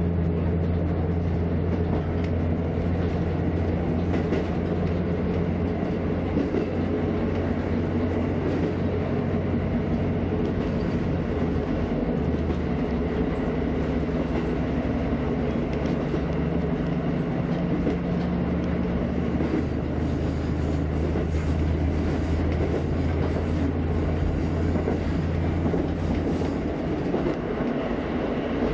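KiHa 54 diesel railcar under way, heard from inside its rear driver's cab: the steady drone of its underfloor diesel engine, whose note shifts a few times, over the rumble of the wheels on the rails. The rail noise grows brighter, with faint clicks, in the second half.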